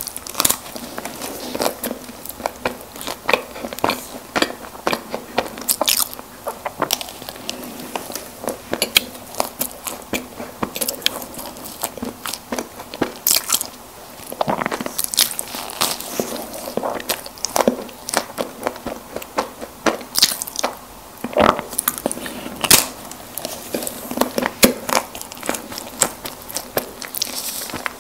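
Close-miked eating of soft packaged snack cakes: bites and chewing, with many irregular sharp clicks and mouth sounds.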